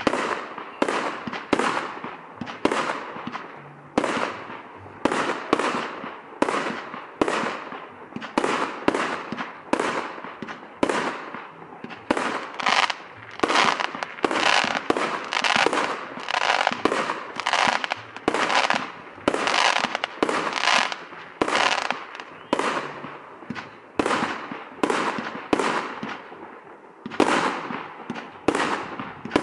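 Aerial fireworks bursting in rapid succession, about one or two sharp bangs a second, each trailing off briefly; the bangs come thickest toward the middle.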